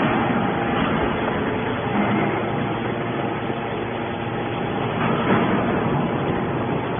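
Horizontal hydraulic scrap-metal baler running while baling metal: steady, dense machine noise with faint steady tones, and a brief louder surge about five seconds in.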